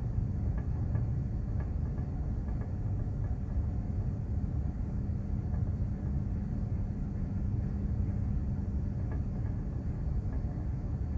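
Steady low rumble with a constant hum, from a container ship under way at sea.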